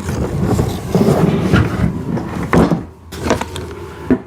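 Plastic parts of a ride-on toy car being handled: rustling and clattering, then several sharp knocks and clicks as the motor connector is worked through the housing.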